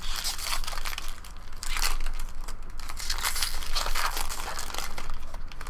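Foil wrapper of a baseball-card pack crinkling and tearing as the pack is handled and opened.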